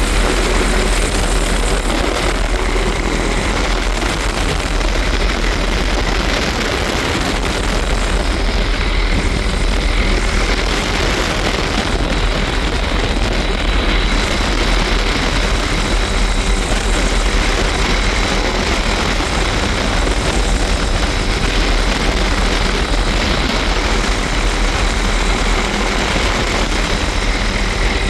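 Tour helicopter in flight with its doors off: loud, steady rotor and turbine noise mixed with wind rushing through the open cabin, with a thin steady whine above it.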